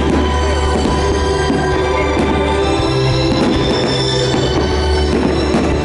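Orchestral music with held chords, a moving bass line and drums, with a few faint sharp bangs from bursting fireworks underneath.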